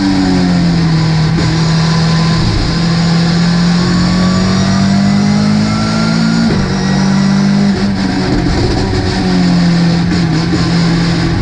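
Ginetta G40 race car's engine running hard under load, its pitch climbing slowly and then dropping sharply about two-thirds of the way through, as at an upshift, with a faint rising whine above it.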